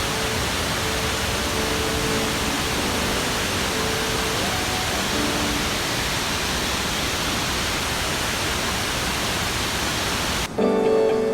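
Wide waterfall: the steady, even roar of water falling. Near the end it cuts off suddenly and guitar music begins.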